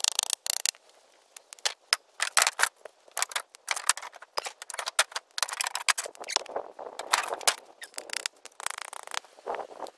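Old weathered wooden boards being picked up and shifted: irregular knocks, clatters and scrapes of wood on wood, with dry leaves rustling underfoot.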